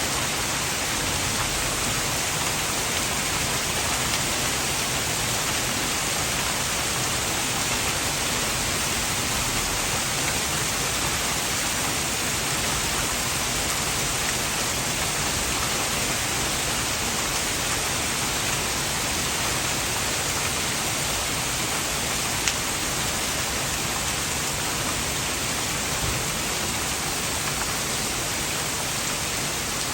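Heavy rain falling steadily, an even hiss with no letup, with a single faint tick about two-thirds of the way through.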